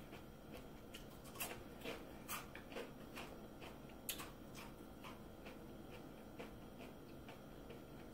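Faint, irregular clicks of someone chewing, about two a second at first and sparser later.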